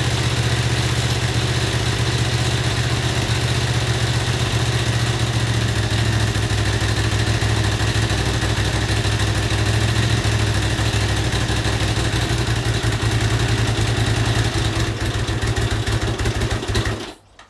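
Honda CX500's liquid-cooled V-twin running, its firing turning more uneven after about six seconds, then dying out near the end. It is the carburettor fault that makes this engine stall whenever it drops below about 1500 rpm.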